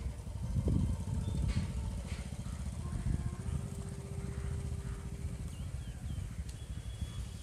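A motor vehicle engine running with a low rumble, loudest about a second in, amid outdoor traffic noise.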